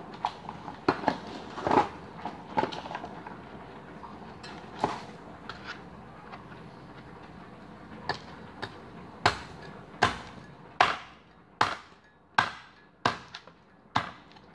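Meat cleaver chopping cooked chicken on a plastic cutting board: sharp chops, scattered and uneven at first, then steady at about one every three-quarters of a second through the second half.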